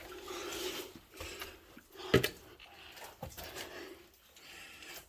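Heavy breathing and scuffing of a person crawling through a tight rock passage in a mine, with one sharp knock about two seconds in.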